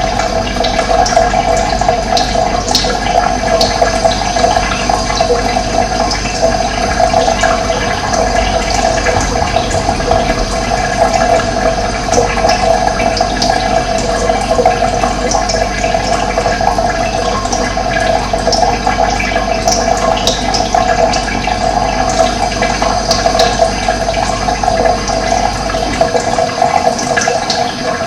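Steady rush of running water, with short chirps from birds scattered over it. A low rumble underneath drops away near the end.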